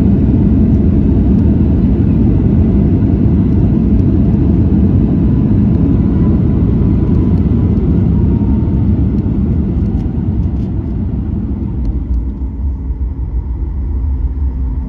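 Cabin noise of a Boeing 737 MAX 8 rolling out on the runway after touchdown: a loud, steady rumble that eases off near the end as the jet slows.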